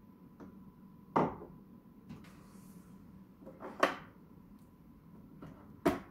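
Three sharp knocks and clicks, about two to three seconds apart: a glass cup set down on the worktop, then the plastic capsule holder of a Nescafé Dolce Gusto Genio S pod coffee machine being unlatched and pulled out.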